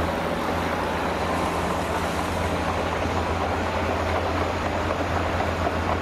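Dump truck's diesel engine running steadily with a low hum as the truck tips out a load of sand.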